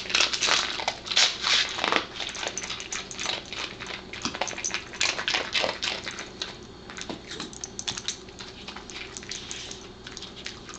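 Pembroke Welsh Corgi eating puffed, crunchy semolina dog biscuits: a rapid run of crisp crunches, loudest in the first two seconds and going on more lightly after.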